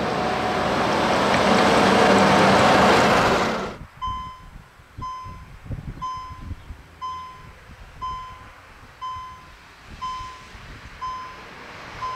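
A Stadler GTW electric railcar runs past with a loud rushing noise, loudest about two to three seconds in, and the noise cuts off suddenly about four seconds in. Then a level-crossing warning signal beeps about once a second while a railcar approaches.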